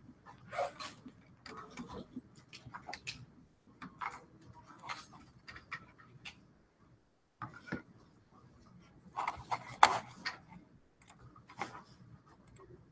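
Scattered light clicks and taps of someone working at a computer, such as mouse clicks and the handling of a USB flash drive, with a louder knock about ten seconds in.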